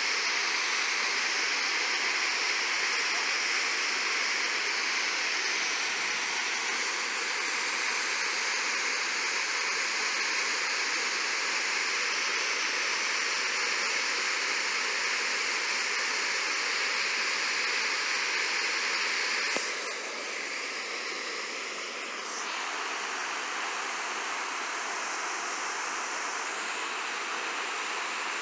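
Steady rushing of a 30-foot waterfall spilling over a rock ledge into a creek pool. The sound drops a little about two-thirds of the way through and stays a bit softer after that.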